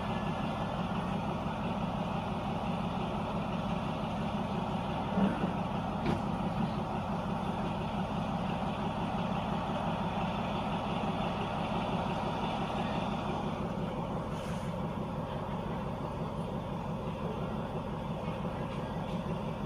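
Diesel passenger train standing at a station, its engine idling with a steady low hum; a couple of brief knocks about five and six seconds in.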